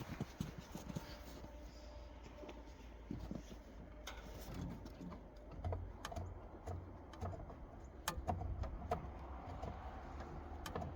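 Faint scattered clicks and light clinks of small parts and tools being handled, with a few dull low knocks in the middle.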